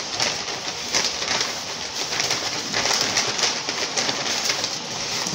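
Paper takeaway bag rustling and crinkling as hands rummage inside it and pull out a food box, with many short crisp crackles.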